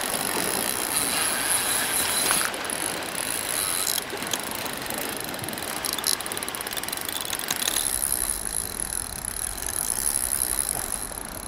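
Lever-brake spinning reel clicking as a hooked red sea bream pulls line off it during the fight, over the steady wash of waves on rocks.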